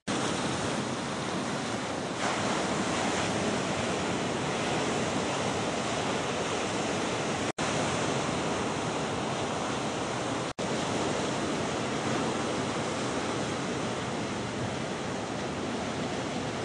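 Ocean waves breaking and washing in, with wind rushing on the microphone. The sound cuts out for an instant twice, about seven and a half seconds in and again three seconds later.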